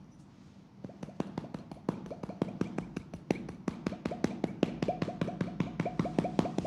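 Fast percussive tapping massage on a leg, about seven strokes a second. Each stroke has a short pitched pop. It starts about a second in and grows louder.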